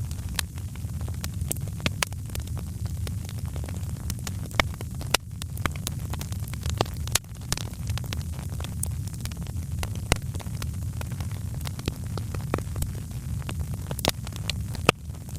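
Wood fire crackling in a fireplace: a steady low rumble of burning with frequent sharp pops and snaps at irregular moments.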